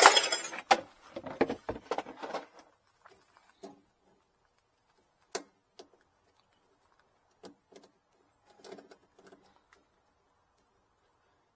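Handling noises: a loud scraping rustle at the start, then scattered clicks and knocks that thin out to a few isolated taps.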